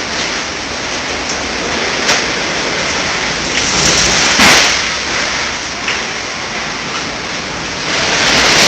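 A windstorm with heavy rain, a steady loud rush of wind and rain, with a couple of brief sharp knocks about two seconds and four and a half seconds in.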